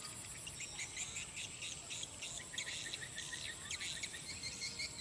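Crickets and other insects chirping: many short, rapidly repeated high calls overlapping in a steady chorus.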